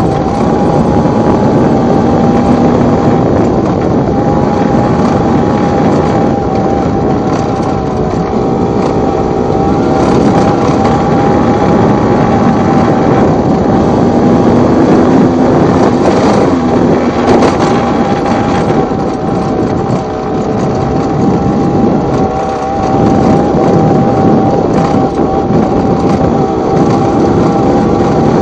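Yamaha TZR / MBK X-Power's two-stroke single-cylinder engine, bored out to 90 cc, running at a steady high note under way, heard from on board the bike over a rushing noise.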